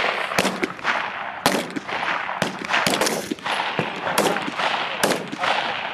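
Rifle fire from several shooters on a firing line: single shots at an uneven pace of about two a second, overlapping, each followed by a ringing echo.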